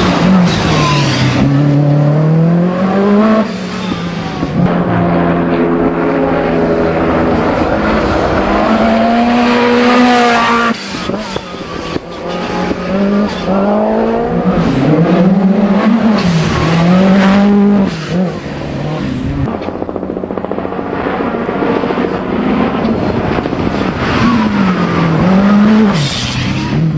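Group B rally car engines at hard throttle. The pitch repeatedly climbs, then drops sharply at gear changes and lifts off the throttle.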